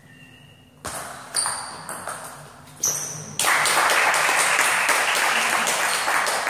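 Table tennis ball in a short rally, with three sharp pings of ball on bat and table over the first three seconds. Loud clapping breaks out suddenly about three and a half seconds in as the point ends.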